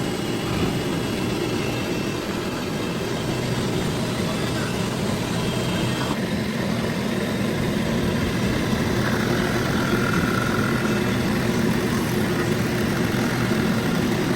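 Small car engine idling steadily.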